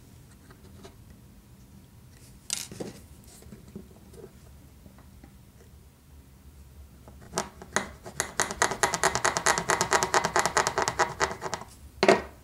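Small needle file rasping the notch of a tiny wooden railroad tie in fast back-and-forth strokes, widening the groove so the rail joiner fits; the filing starts about two-thirds of the way in and stops just before a sharp knock near the end. A single sharp knock comes earlier, about two and a half seconds in.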